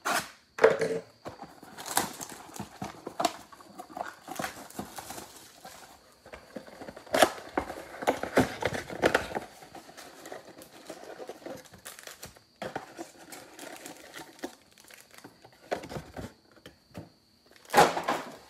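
Cardboard trading-card box being torn open and its foil card packs slid out and handled: irregular crinkling, tearing and rustling of cardboard and foil wrappers, with sharp clicks and a louder rustle near the end.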